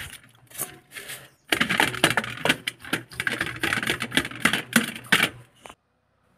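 Bristle brush scrubbing a motorcycle starter-motor part in a metal basin of wash liquid: rapid scratchy strokes with light clinks against the metal, getting going about a second and a half in and stopping shortly before the end.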